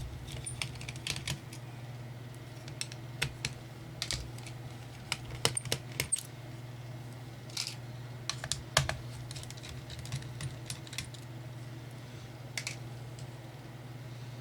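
Scattered small clicks and taps of a screwdriver and screws against the plastic and metal base of a Dell Latitude E6420 laptop as its bottom screws are taken out, coming at irregular moments over a steady low hum.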